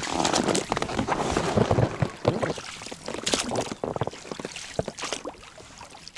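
Boat on a small river being handled: irregular knocks, scrapes and splashes of water, busiest for about the first four seconds and then thinning out to scattered clicks.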